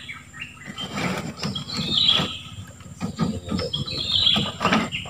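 A forest bird singing the same high, descending phrase over and over, about once every two seconds, with irregular knocks and rustling underneath.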